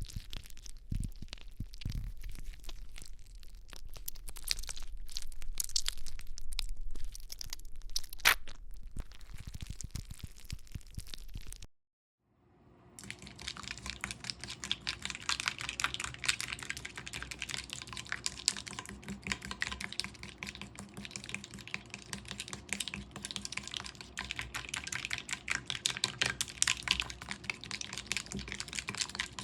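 Slime being squished and worked, making rapid sticky clicks and crackles. The sound drops out briefly about twelve seconds in, and after that the clicking gets denser and steadier.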